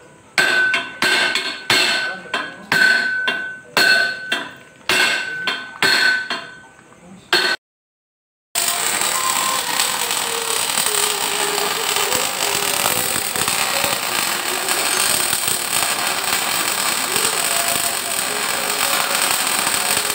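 A hammer striking metal about a dozen times, roughly two blows a second, each blow ringing at the same pitch. After a brief break, a steady crackling hiss of electric arc welding.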